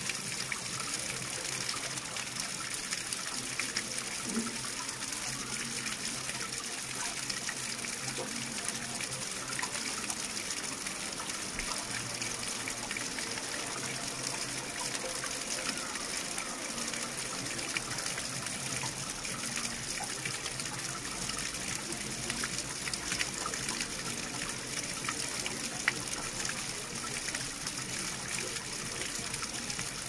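Running water, a steady, unbroken rush.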